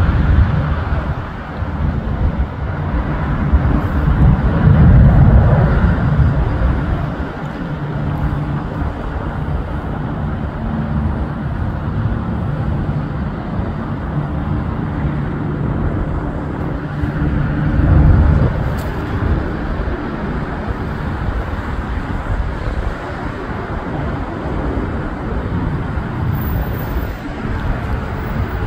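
Road traffic going by: a steady rumble of car and tyre noise that swells as vehicles pass, loudest about five seconds in and again near eighteen seconds.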